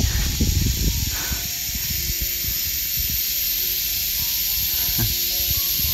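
Wind buffeting the microphone: a low, uneven rumble under a steady hiss.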